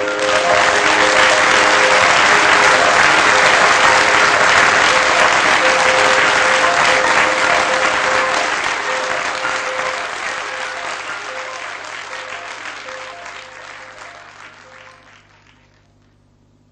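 Live audience applauding at the end of a cabaret song, with music still sounding faintly underneath; the applause fades out over the second half and is gone shortly before the end.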